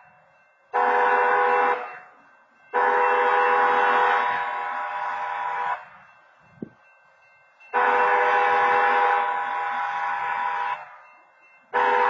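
CTC wayside horn at a railroad grade crossing sounding the long-long-short-long crossing pattern. A short blast about a second in, two long blasts of about three seconds each, and another long blast starting near the end, each a steady tone cut on and off sharply. This automated crossing horn warns of an approaching train.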